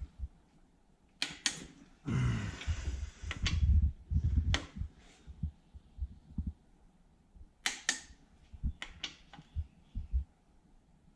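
Wrench work on the crankshaft cap bolts of a small-block Chevy engine: a run of fast ratcheting about two seconds in, then scattered sharp metal clicks.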